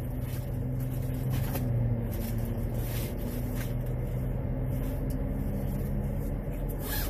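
Car idling: a steady low hum heard inside the cabin, with a few faint clicks and rustles from a handbag being rummaged through.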